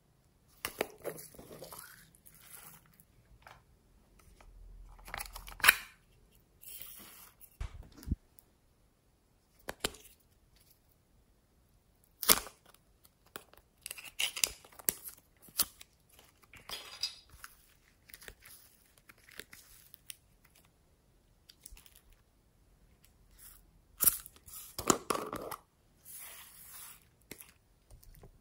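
Small plastic slime containers being handled and opened by hand: a series of sharp plastic clicks and short scraping rustles, separated by quiet gaps.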